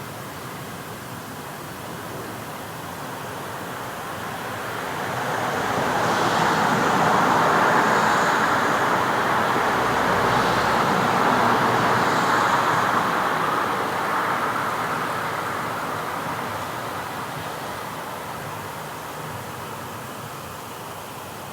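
Street traffic, with a vehicle passing close by: a steady hiss of tyres and engine noise that builds over a few seconds, holds loudest for several seconds, then slowly fades back to the background traffic.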